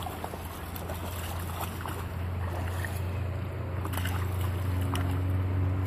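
A steady low motor drone, slowly growing louder, with a higher hum joining about four seconds in, over the light splashing of dogs wading in shallow river water.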